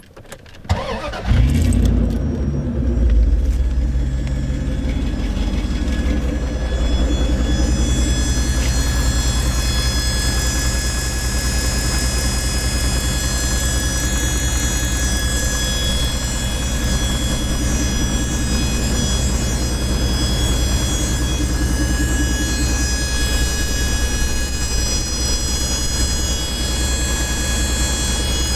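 1996 Dodge Dakota engine started, catching about a second in, then idling steadily with a continuous high-pitched squeal over it; the owner cannot find where the squeal comes from.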